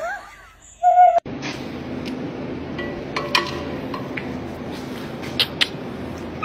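A husky gives short, pitched yowling calls that mimic a human laugh, the last about a second in. The sound then cuts to a steady low hum with scattered clicks and taps.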